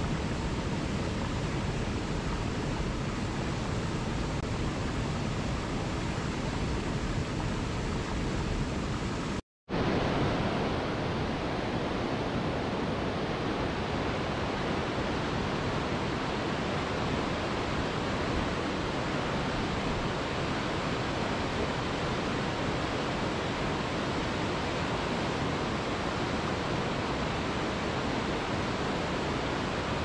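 Steady rush of falling and cascading water from a waterfall. It drops out for a split second about ten seconds in, then resumes slightly duller.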